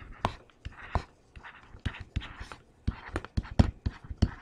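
Pen-style stylus writing on a screen: a run of irregular sharp taps with short scratchy strokes between them as words are handwritten.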